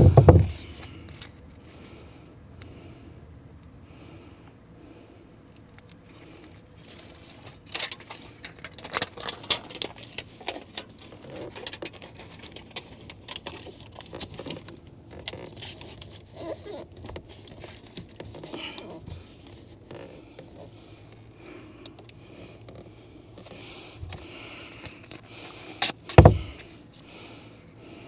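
Scattered crackling, clicking and scraping handling noises, with a heavy thump at the very start and another about 26 seconds in.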